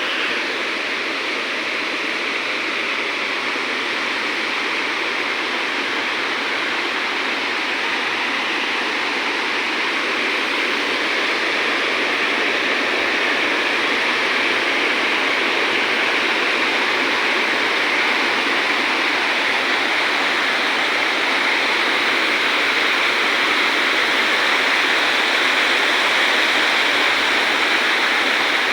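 Rushing water, as of a waterfall or fast stream, a steady hiss with little low rumble that slowly grows a little louder over the first half.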